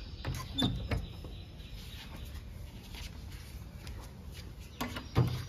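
A few short metallic clicks and rattles from a door's steel sliding bolt and padlock being handled, some in the first second and a few more near the end, over a low steady background rumble.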